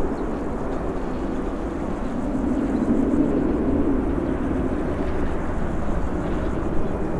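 Embraer 195's twin GE CF34-10E turbofans at takeoff climb power, heard from behind as the jet climbs away: a steady low rumble of jet noise that swells briefly about three seconds in.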